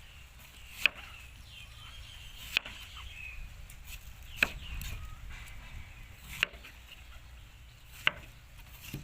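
Knife chopping down onto a wooden board: five sharp single knocks, spaced about two seconds apart.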